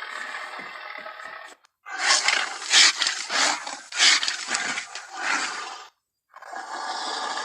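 King Kong creature sound effects from the 2005 film: a growl, then after a short gap a loud roar of about four seconds rising and falling in several surges, then another growl starting near the end.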